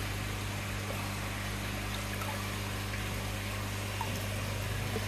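Aquarium pump humming steadily, with water trickling and splashing in the tank.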